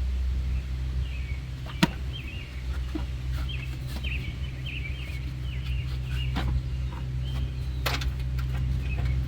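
Scattered clicks and knocks of the plastic air filter box, cover and clips being handled and pressed into place, the sharpest click about two seconds in, over a steady low hum.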